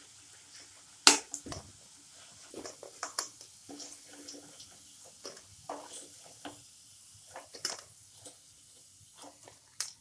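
A slotted spoon scraping and tapping in a non-stick kadhai while fried raw-banana pieces are scooped out and dropped onto a steel plate. The result is irregular clicks and light clatters, the loudest about a second in.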